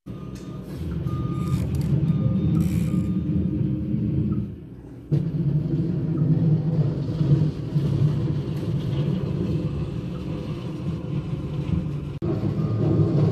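Skid steer loader clearing snow, its engine running steadily. Its reversing alarm beeps in short repeated tones for the first few seconds and again near the end.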